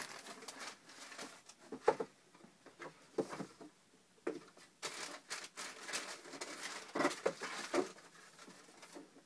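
Tissue paper and a cardboard shoebox being handled as a pair of sneakers is unwrapped: irregular rustling, crinkling and light knocks.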